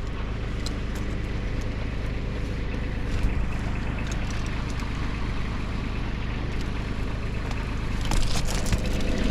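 An engine running steadily at idle, with a few light clicks and rattles near the end.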